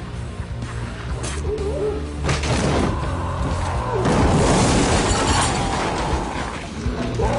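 Film score music with a loud smashing crash, which swells from about two seconds in and is loudest around four to five seconds in.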